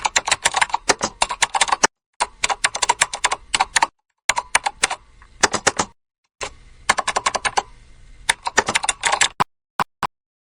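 Rapid keyboard-typing clicks in four bursts of about two seconds each, broken by abrupt silent gaps, then a few single clicks near the end.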